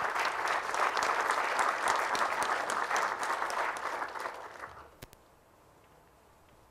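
Audience applauding at the end of a talk, a dense patter of many hands clapping that dies away after about four and a half seconds.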